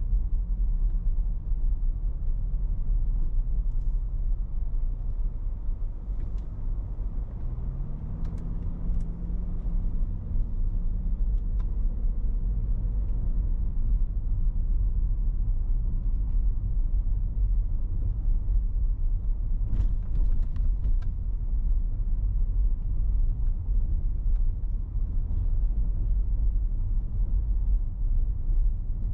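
Car driving slowly, a steady low rumble of engine and tyres on the road. About eight seconds in the engine note rises and then holds, and a few brief clicks come through around twenty seconds in.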